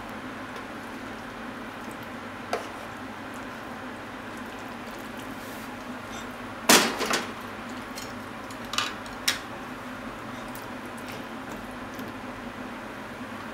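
A spatula knocking and clinking against a pan and a baking dish as stir-fried eggplant and minced meat are scraped into the dish and pressed down. There is a single knock early on, a loud clatter of several knocks about halfway through, and two lighter knocks shortly after, over a steady hiss.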